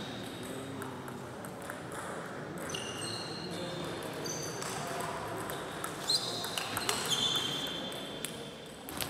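A table tennis rally: the ball clicks sharply off bats and table, with a quick run of hits about six to seven seconds in, and sports shoes squeak on the hall floor. Voices murmur in the background.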